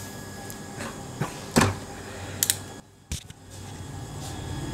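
Handling sounds of a digital multimeter and its test leads being picked up and set down on a metal UPS chassis: a handful of sharp clicks and knocks, the loudest about a second and a half in and a quick double click about a second later.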